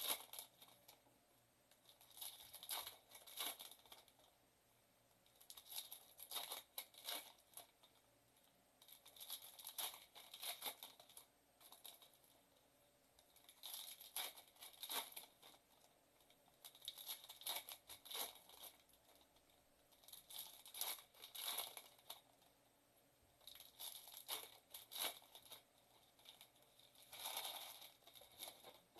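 Foil trading-card pack wrappers torn open and crinkled by hand, in short bursts every three seconds or so.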